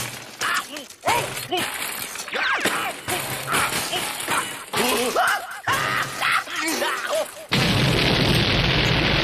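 Cartoon explosion sound effect: a sudden loud boom about seven and a half seconds in that keeps going to the end. It follows a quick string of short sounds that swoop up and down in pitch.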